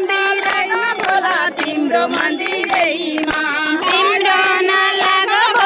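A group of women singing a devotional kirtan bhajan together, clapping their hands to a steady beat.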